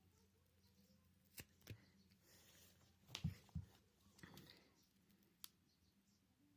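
Faint scattered clicks and taps of a plastic prying tool working against a smartphone's glued back glass, the loudest pair about three seconds in.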